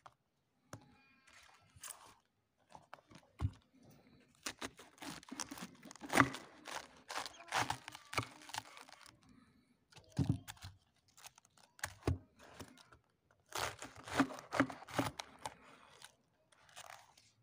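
Knife cutting through a raw head of cabbage on a wooden board: the crisp leaves crunch and crackle as the blade goes through, in two long bouts, with dull knocks of the blade reaching the board. A cabbage leaf is torn off near the start.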